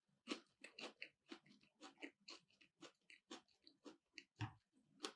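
Quiet, close-up chewing of keto sushi made with cauliflower and cheese in place of rice, at about three chews a second, with a low thump about four and a half seconds in.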